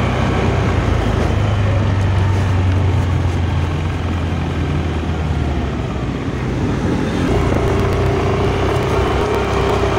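Yamaha Aerox S 155 scooter's single-cylinder engine running steadily while being ridden, under a haze of wind and road noise. The engine note eases briefly about six seconds in.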